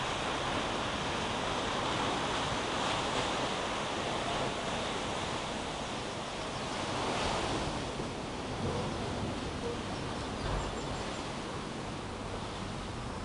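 Steady outdoor rushing of wind and surf, swelling about seven seconds in.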